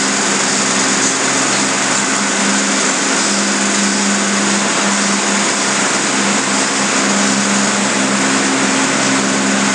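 Steady machine-like drone: a constant low hum under a loud hiss, unchanging throughout.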